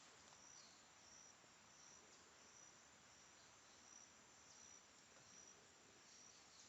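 Faint insect chirping: short, high-pitched chirps repeating evenly about twice a second over near silence.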